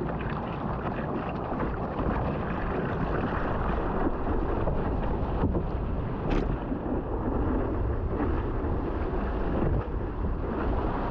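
Steady rush of water and wind noise on a surfboard-mounted camera's microphone as the board rides a breaking wave, with whitewater churning alongside.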